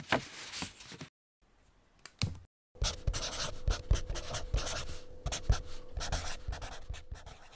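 Pen scratching on paper in quick, irregular strokes, starting about three seconds in, with a brief scratch at the start and a single click about two seconds in. A faint steady hum lies underneath.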